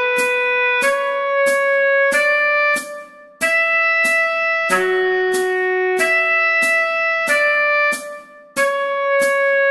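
Tenor saxophone playing a melody in held notes over a steady click on every beat, about three clicks every two seconds. The playing breaks off briefly twice, about three and eight seconds in.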